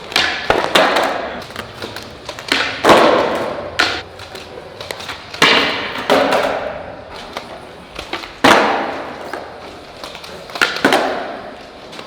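Skateboard tricks: about five sharp board clacks from pops and landings, each followed by wheels rolling that fades away over a second or two.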